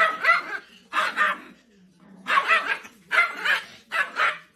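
A dog barking repeatedly, about five drawn-out barks roughly a second apart.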